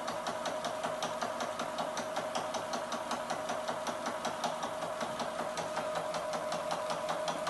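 Electric sewing machine running steadily, stitching fabric: a quick, even run of needle strokes over a steady motor hum.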